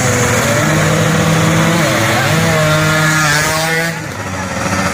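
Drag-race motorcycle engines revving hard and held high. About three seconds in the pitch climbs, then it falls away a little before four seconds.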